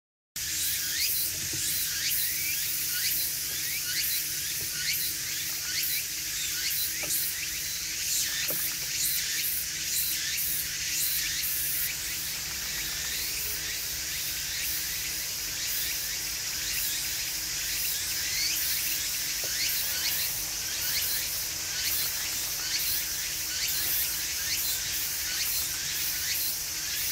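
Steady outdoor ambience: a dense, continuous stream of short high chirps over a high hiss, with a faint low hum beneath.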